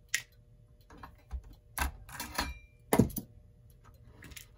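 Irregular small clicks and knocks of metal clock parts and tools being handled on a workbench, about eight in all, the loudest a sharp knock about three seconds in.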